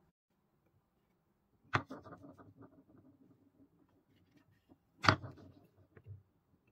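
Two wooden balls dropped one after another into a wooden bowl, about three seconds apart: each lands with a sharp knock, then rolls and rattles around the bowl, fading out over a second or so.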